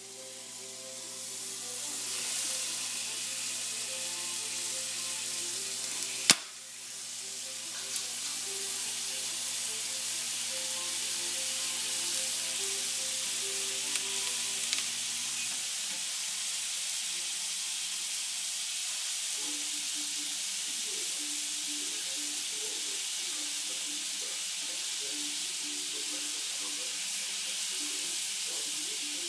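An ice cube melting on a hot nonstick frying pan, its meltwater sizzling in a steady hiss that builds over the first couple of seconds. There is a sharp crack about six seconds in and another around eight.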